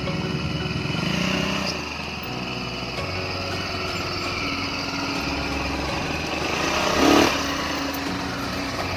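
Small engine of an off-road go-kart buggy running and revving as it drives up loading ramps into a pickup bed, its pitch rising about a second in. A short loud burst comes about seven seconds in.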